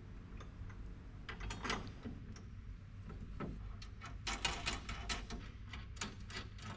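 Light metal clicks and taps as a bolt-on door bar of a body-shell bracing frame is set into its brackets and its bolts are fitted by hand, coming in small clusters about a second in, around four to five seconds in, and near the end.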